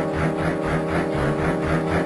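Background music: held notes over a steady pulsing bass beat.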